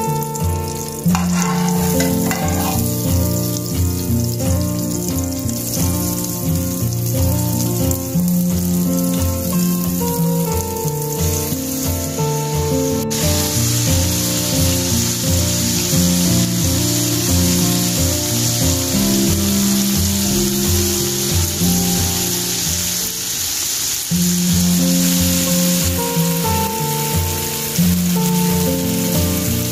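Melted butter sizzling in a frying pan, with chopped tomatoes and onions frying in it; the sizzle jumps suddenly louder and brighter about thirteen seconds in. Background music with a steady beat plays throughout.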